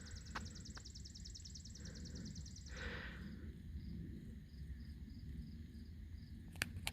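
A high, rapid trill of about nine or ten pulses a second from a wild animal lasts for about the first three seconds. Soft, evenly spaced high chirps follow. A low wind rumble runs beneath, and a few sharp clicks come near the end.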